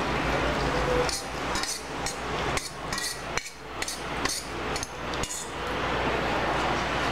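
Beaten eggs sizzling in hot melted butter as they are poured into a non-stick frying pan. A string of sharp knocks, about two a second, runs over the sizzle from about a second in until past the middle.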